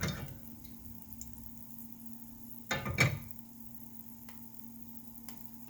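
Grapeseed and sesame oil heating in a small pot on a stove, giving a few faint scattered crackles over a steady low hum. One louder short sound comes about three seconds in.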